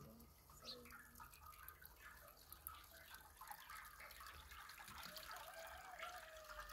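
Faint trickle of water poured from a plastic jug through chopped greens in a steel colander and dripping into a basin below, with small irregular drips and splashes.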